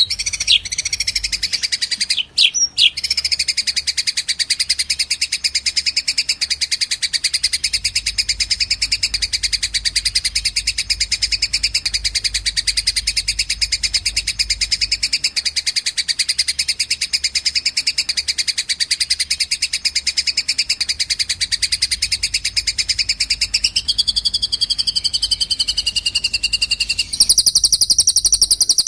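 Songbird tutoring recording of fighting tree sparrow and cililin song: a rapid, unbroken high chattering trill with a few sharp chips about two seconds in. Near the end it switches to a higher, denser song. A faint low hum runs underneath.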